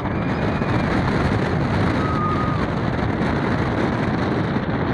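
Zierer launched roller coaster train running along its steel track at speed, wheels rumbling under a steady rush of wind over the microphone.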